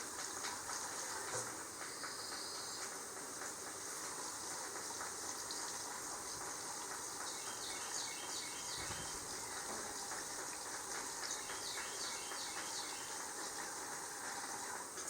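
Gasoline pouring from a gas can into a portable generator's fuel tank, a steady hissing trickle. A bird chirps in two short runs of quick repeated notes, about halfway through and again later.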